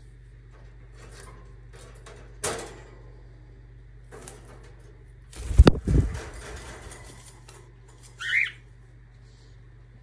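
Cockatiel's wings flapping in a loud burst about halfway through, after a sharp click from the wire cage being handled. Near the end the cockatiel gives one short rising chirp.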